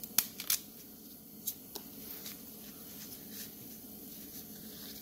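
Nitrile-gloved hands handling a new NOx sensor and its fabric heat-shield sleeve: a few sharp clicks and rustles in the first two seconds, then quieter handling over a low steady hum.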